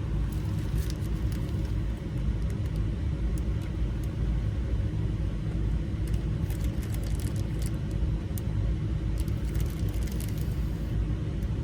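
Light metallic clicks of small lock wafers and parts being handled while an ignition lock cylinder is loaded, over a steady low rumble.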